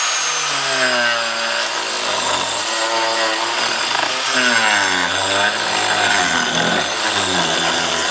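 Power saw cutting wood, its motor pitch repeatedly dipping and climbing back.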